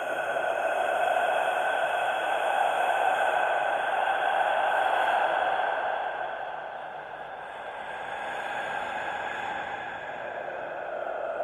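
Scary whisper sound effect: continuous breathy, hissing whispered noise with no clear words. It swells over the first few seconds, fades about seven seconds in, then builds again.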